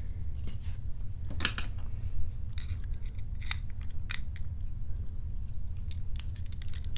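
Scattered sharp metal clicks and light clinks from a padlock and lock picking tools being handled, with a steady low hum underneath.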